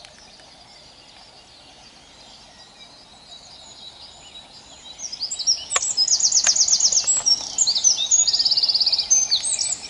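Songbirds singing: faint at first, then from about halfway through, loud rapid trills and chirping from several birds at once.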